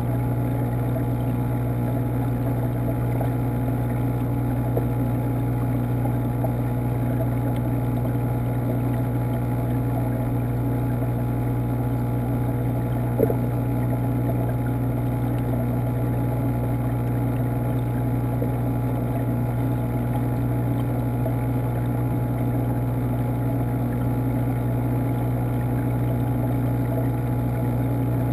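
Steady hum of an aquarium water pump, heard underwater through the camera's waterproof housing, with a single short click about halfway through.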